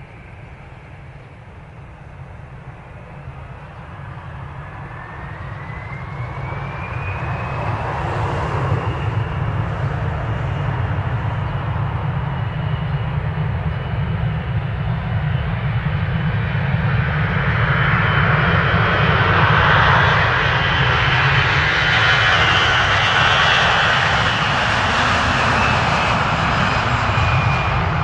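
Airbus A321 airliner's turbofan engines spooling up with a whine that rises and then levels off. A jet roar builds steadily louder and stays loud near the end.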